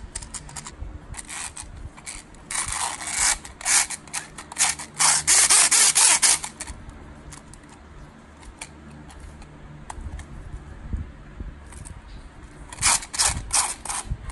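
Hard plastic toy parts being handled and fitted together: quick clicks and rattles, with two longer scraping stretches in the first half and a cluster of clicks near the end.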